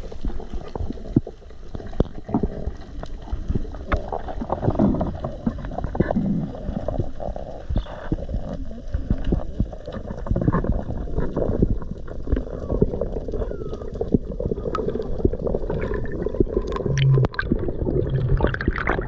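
Muffled underwater sound recorded through a camera housing: low gurgling, rushing water with many sharp clicks and crackles scattered throughout.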